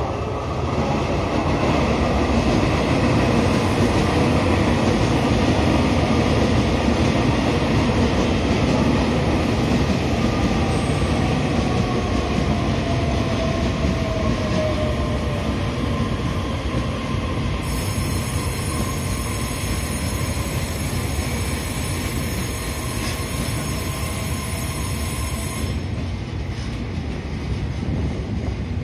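Electric passenger train passing through a station, a loud steady rumble of wheels on rail. About halfway through, a tone glides downward. Later, a high steady whine runs for several seconds.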